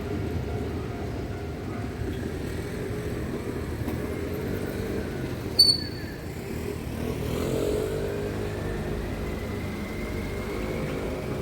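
Road traffic passing, with one engine rising in pitch as it speeds up over the second half. A single sharp, short high click sounds about halfway through and is the loudest moment.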